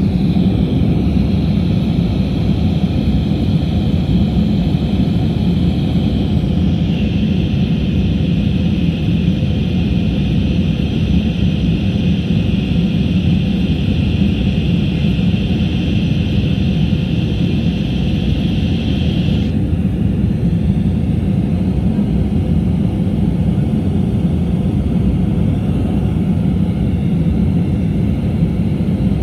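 Steady cabin roar of an Airbus A319 climbing after takeoff: jet engine and airflow noise, strongest low down. A higher hiss runs alongside it and stops abruptly about twenty seconds in.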